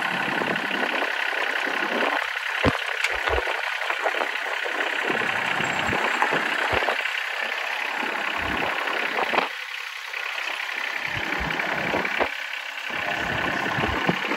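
New Holland TZ25DA compact diesel tractor running as it drives, with gravel crunching under its tyres and a few irregular low thumps.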